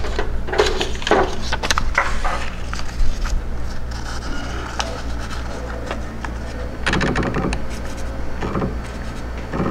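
CNC router's Z-axis being jogged down in short, irregular steps to touch the end mill off on a slip of paper, with handling noises of the paper and jog controller, over a steady low hum.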